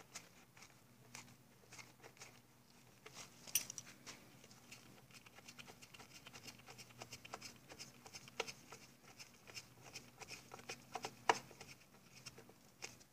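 Faint, irregular clicks and taps of hand tools and metal parts being handled while bolts are worked loose on an outboard motor, with two sharper clicks about a third of the way in and near the end. A faint steady hum sits underneath.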